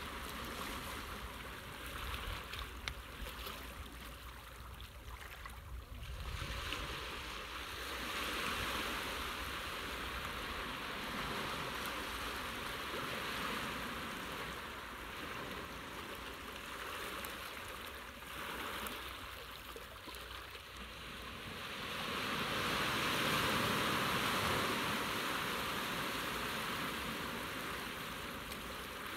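Seawater washing and swirling as a steady rush, swelling louder about eight seconds in and again, more strongly, from about twenty-two to twenty-six seconds in.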